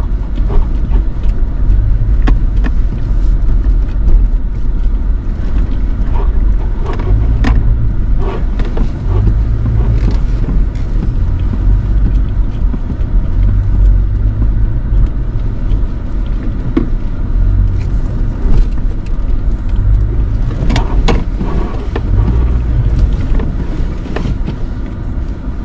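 Pickup truck crawling over a rocky dirt trail, heard from inside the cab: a steady low engine and drivetrain rumble with scattered knocks and crackles of tyres rolling over rock and gravel.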